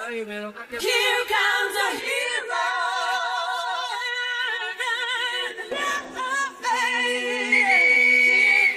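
A choir singing without instruments, long held notes with vibrato, ending on a high held note.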